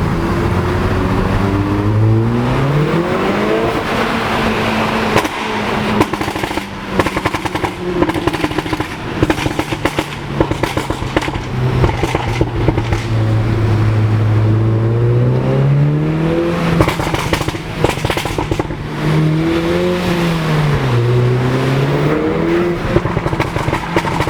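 Audi S1's turbocharged four-cylinder engine revving up several times, rising in pitch with each pull. Between the pulls come long runs of rapid pops and crackles from the exhaust.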